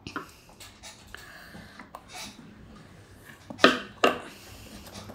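Handling noise: a few light knocks and rustles as the popsicle-stick model and toys are moved about, with two louder knocks about three and a half and four seconds in.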